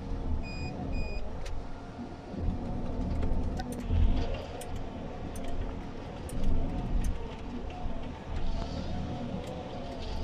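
Komatsu 931.1 harvester heard from inside its cab: the diesel engine and hydraulics running steadily while the crane and harvester head work a log, with scattered rattles and knocks and a couple of swells as the load rises. Two short beeps about half a second and one second in.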